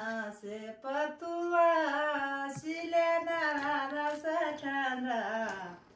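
A woman singing a local Himachali folk song unaccompanied, in long held, wavering notes; the singing breaks off near the end.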